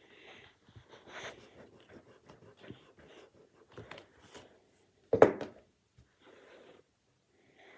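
Hands moving over and rubbing against a sheet of paper on a desk: scattered faint rustles and light taps, with one much louder bump about five seconds in.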